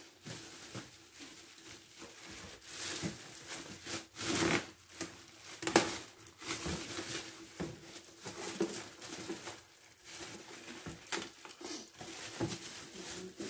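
Clear plastic packaging rustling and crinkling in irregular handfuls as it is pulled off a new bread maker, with scattered knocks and one sharp click about six seconds in.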